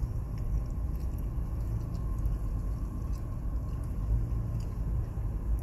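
Steady low rumble of a car driving along a residential street, engine and road noise heard from inside the cabin.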